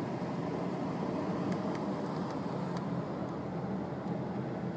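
Steady road noise inside a moving car's cabin: tyres and engine running on the highway, with a few faint ticks.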